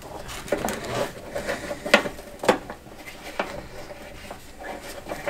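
Irregular light clicks and knocks of a hose, its fittings and ear clamps being handled and fitted in a VW T3's engine bay. The sharpest clicks come about two and two and a half seconds in.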